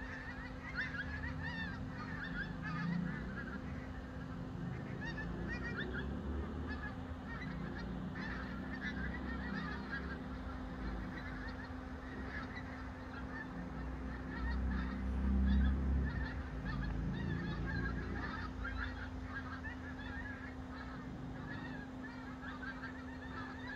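A large flock of migrating geese flying overhead, many birds honking at once in a continuous overlapping chorus, with a low rumble swelling about two-thirds of the way through.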